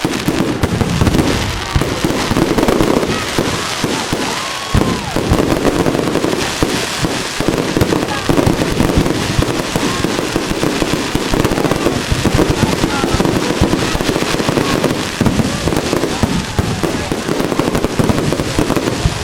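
Fireworks display going off nonstop: a dense run of bangs and crackling with no let-up.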